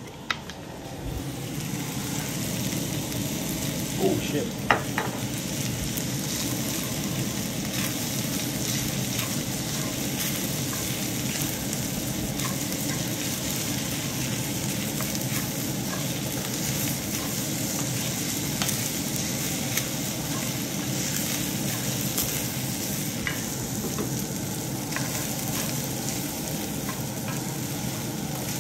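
Fried rice and shredded vegetables sizzling in a hot cast-iron skillet while being stirred and turned with a wooden spatula: a steady crackling sizzle that swells about a second in. A few sharp knocks stand out around four to five seconds in.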